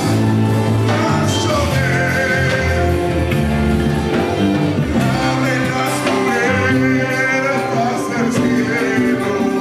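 Live Latin-style praise music from a church band, with singing over a bass line and drums.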